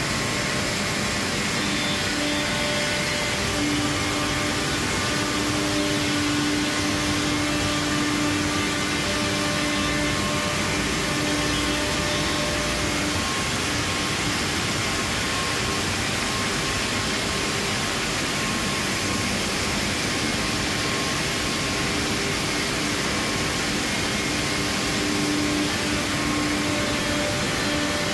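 Steady rushing hiss and hum of a running HOMAG panel saw cell and its dust extraction, with no cutting strokes; the hum swells a little now and then.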